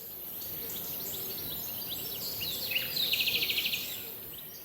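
Birdsong: many short, high chirps from several birds, with a rapid trill about three seconds in. It fades in at the start and fades out near the end.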